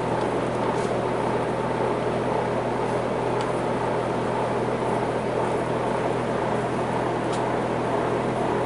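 A steady mechanical hum with an even rushing noise over it, and a couple of faint ticks.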